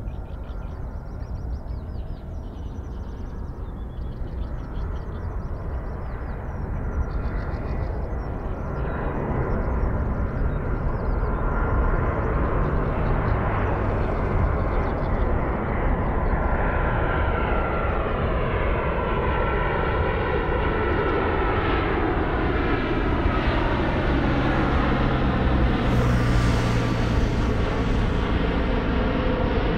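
Boeing 787 jet engines on approach with the landing gear down, growing louder as the airliner comes in overhead. From about halfway through, a whine made of several tones falls steadily in pitch as it passes, over a steady low rumble.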